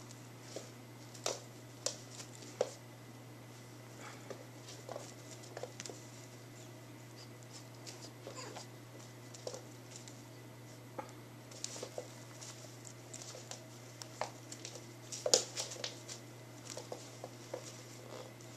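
Kittens at play on a hard wood-look floor: scattered light taps, patters and scuffles as their paws and claws pounce on a wand toy, irregular and coming in small clusters. A faint steady hum runs underneath.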